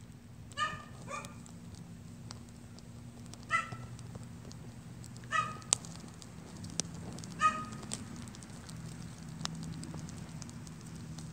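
A dog barks five times, in two quick barks and then three single ones spaced a couple of seconds apart. Between the barks, the fire burning a plastic game controller gives off scattered sharp crackles and pops over a low steady rumble.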